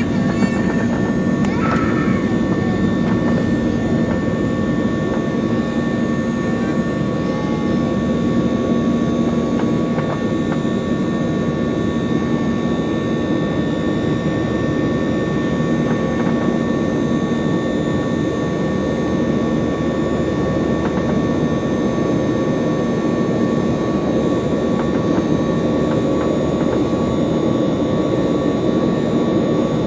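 Boeing 737-800's CFM56-7B jet engines and airflow running at steady thrust, heard inside the passenger cabin: an even roar with several steady high whining tones.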